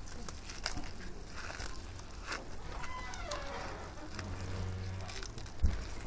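Gloved hands picking through a tangled nylon fishing net to free crabs, with scattered rustling and small clicks and a single thump near the end.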